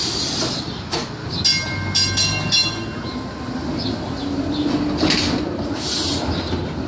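TTC CLRV streetcar passing close by, its steel wheels rumbling and clacking over the rails. About a second and a half in comes a quick cluster of sharp, ringing metallic strikes.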